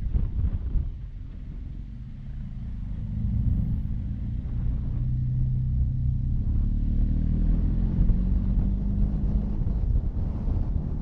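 Motorcycle engine running on the move, with wind noise. It eases off about a second in, then picks up again into a steady engine tone that climbs slightly.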